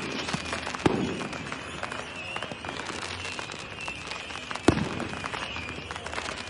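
Fireworks going off: dense crackling and popping of firecrackers with two loud bangs, one about a second in and one about two-thirds of the way through, over a wavering high whistle.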